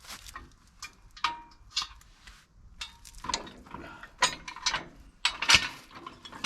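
Steel parts of a tractor's 3-point quick hitch being worked loose and handled: irregular metal clinks and clanks, some ringing briefly, with the loudest knock about five and a half seconds in.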